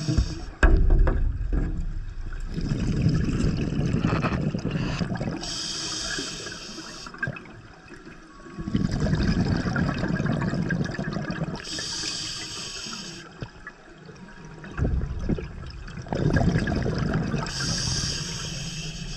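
Scuba diver breathing through a regulator underwater: a short hissing inhalation followed by a longer rush of rumbling exhaled bubbles, repeating about every six seconds, three breaths in all.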